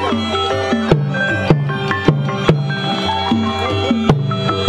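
Cambodian pinpeat ensemble playing traditional music: drums strike about twice a second under a melody of pitched percussion and sustained notes.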